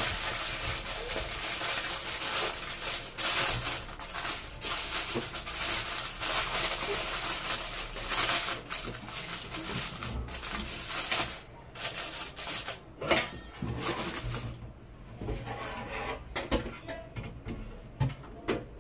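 Aluminium foil crinkling and crackling as it is pressed down around the rim of a cooking pot, dense for the first ten seconds or so. After that it quietens, with a few knocks as a steel pot lid is set on top of the foil.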